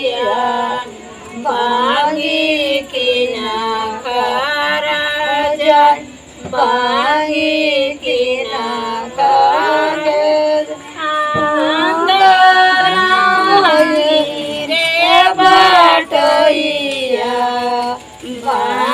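Women singing a devotional folk song for the Jitiya fast, in long, drawn-out phrases broken by a few short pauses.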